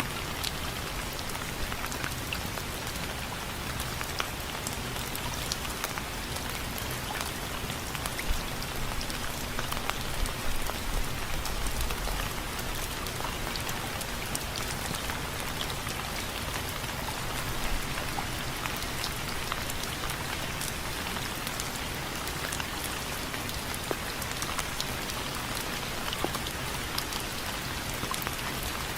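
Steady rain falling on window frames: a dense, even hiss with scattered sharper drop hits. A brief low rumble comes about eleven seconds in.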